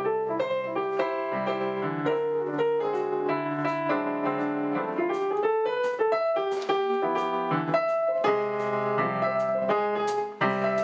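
Piano music: chords and a melody of struck notes, breaking off briefly about ten seconds in before going on.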